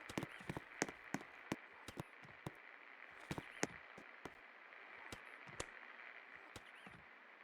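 36-inch ABC industrial ceiling fan running with a faint, steady whirr, over which come many irregular sharp clicks and ticks, most of them in the first few seconds.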